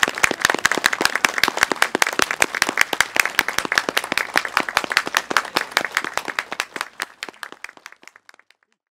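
A crowd applauding: many hands clapping, the applause dying away near the end.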